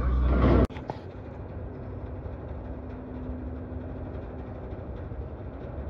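A loud rumble cuts off suddenly under a second in. A tanker ship's machinery then runs steadily, a low rumble with a faint steady hum.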